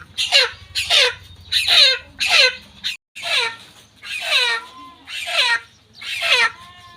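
A chicken squawking loudly over and over, each call sliding down in pitch, about one call every 0.7 seconds.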